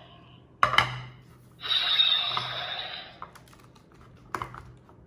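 Hard plastic clicks of a toy transformation belt being handled: two sharp clicks, then a noisy rush lasting about a second and a half, then one more click near the end.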